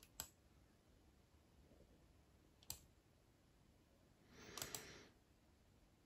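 Near silence broken by a few faint clicks: one just after the start, one near the three-second mark, and a short rustling cluster with two clicks about four and a half seconds in.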